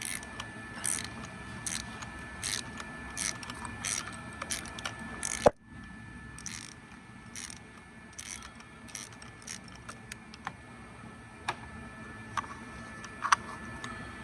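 Ratchet wrench clicking in short strokes as a spark plug is unscrewed with a spark plug socket, with a loud sharp click about five and a half seconds in and sparser clicks after it.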